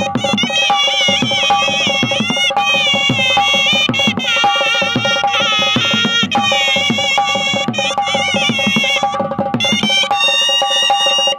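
Traditional folk music: a hand drum keeping a steady beat under a held drone and a high, ornamented melody that bends and wavers in pitch.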